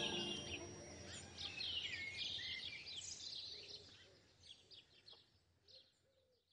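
Birds chirping: a busy flurry of short, high chirps that thins out and fades away toward the end.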